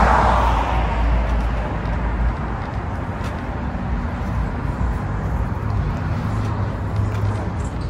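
Road traffic noise: a vehicle passing, swelling and fading over the first couple of seconds, then a steady background of traffic.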